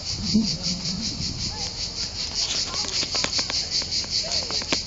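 Crickets chirping in a steady, even pulse of several chirps a second, with a few faint clicks about three seconds in.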